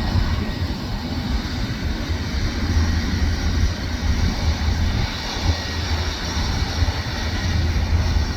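Aircraft engines running at an airfield: a steady, even noise with a strong low rumble.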